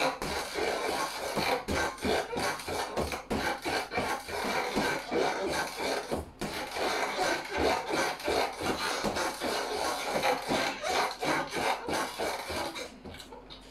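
Boxing gloves striking a free-standing punching bag in a rapid run of punches, several thuds a second, which stop about a second before the end.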